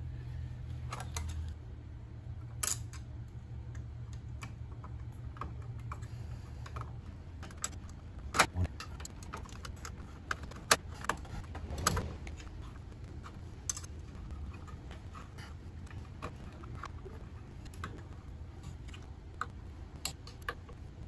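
Small metal clicks and clinks as bolts, a license plate and a chrome license plate frame are handled and fastened by hand onto a motorcycle's rear fender. The clicks come irregularly, a few sharper ones in the middle, over a low hum that stops about seven seconds in.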